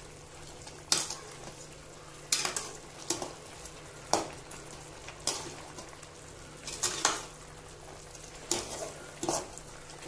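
A perforated metal ladle scrapes and knocks against a metal cooking pan as chicken pieces are stirred through a thin sauce: about ten sharp scrapes at uneven intervals, roughly one a second, over a steady low hiss.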